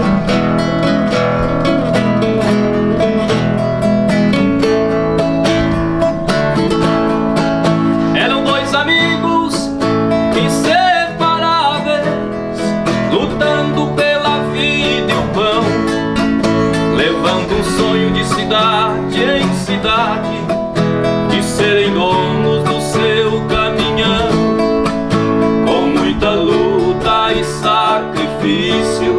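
Two nylon-string classical guitars playing a sertanejo tune together, a plucked melody over chords.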